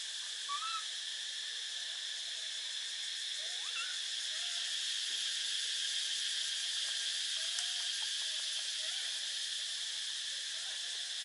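A steady, high-pitched insect chorus of crickets or cicadas, with a few faint, short rising calls scattered through it.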